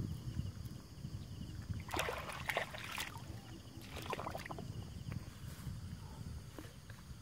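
Shallow water sloshing in short bursts, in a cluster about two seconds in and again about four seconds in, as someone wades in a flooded rice field, over a steady low rumble.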